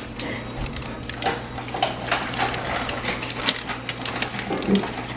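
Paper butter-stick wrappers crinkling and crackling as they are peeled off the sticks, a run of quick, irregular small crackles.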